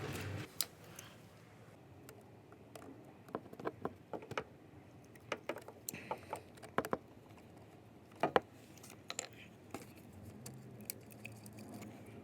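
Scattered light clicks, knocks and small metallic rattles of tools and door parts being handled while a car door is taken apart, with the loudest knock about eight seconds in.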